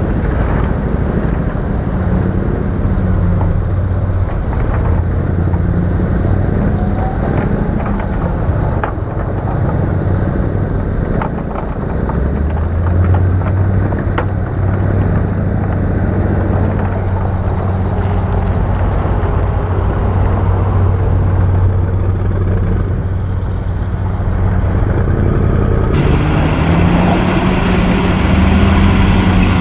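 Diesel engine of heavy earthmoving machinery running under load, its pitch rising and falling, with a few sharp knocks in the middle and an abrupt change in the sound a few seconds before the end.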